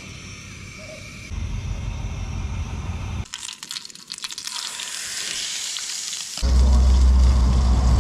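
Cooking sounds in short clips cut together: food sizzling and crackling in a frying pan for a few seconds in the middle, then a steady low rumble near the end.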